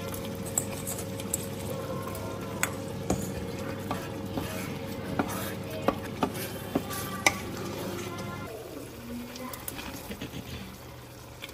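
A pot of tomato stew sizzling and bubbling while a wooden spoon stirs it, with sharp clicks of the spoon and meat pieces knocking against the pot. About eight seconds in the steady sizzle drops, and fried meat is tipped in from a bowl with a few softer knocks.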